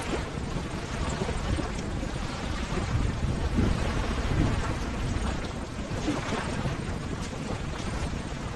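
Ocean waves: a steady wash of surf, heaviest in the low end.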